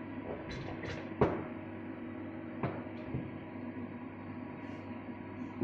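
A low steady machine hum, with a few light clicks and knocks of handling, the sharpest about a second in.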